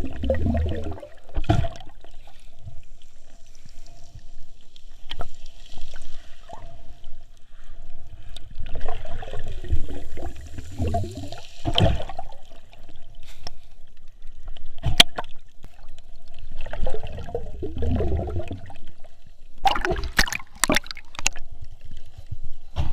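Water gurgling and sloshing around a snorkeler, swelling with bubbly, wavering gurgles about every eight to ten seconds, with a few sharp clicks near the end.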